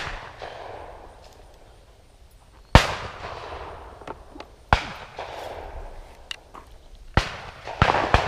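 12-gauge shotgun shots, about six sharp cracks, each with a short echoing tail; the loudest comes about three seconds in, with more about five and seven seconds in and two close together near the end.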